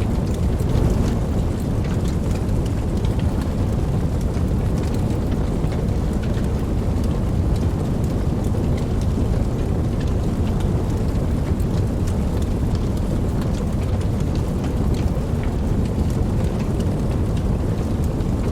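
Steady heavy rain with a deep, constant rumble underneath and scattered drop ticks throughout.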